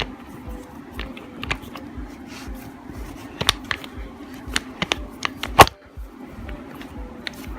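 Sharp metallic clicks and taps as a steel jaw is fitted into a Pratt Burnerd 3-jaw lathe chuck and the scroll is turned to engage it, with one louder knock just past halfway.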